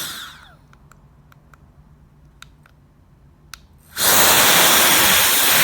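A CCV cordless electric air duster's high-speed motor winds down with a falling whine, then several clicks of its buttons as it is switched to its top speed setting. About four seconds in it starts blowing at full power with a sudden, loud, steady rush of air.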